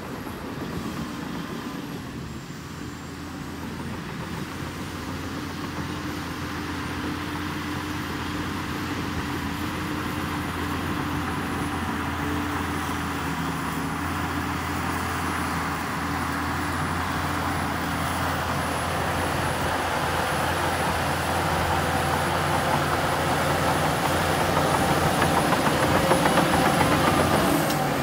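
Heavy earthmoving machine's diesel engine running steadily, growing gradually louder, with a faint high whine above it.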